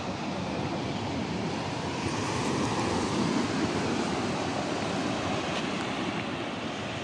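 Steady rush of surf on a sandy beach mixed with wind on the microphone, swelling a little in the middle.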